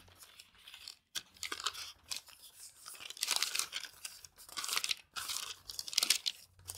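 Thin Bible pages being turned and leafed through, rustling and crinkling in irregular bursts.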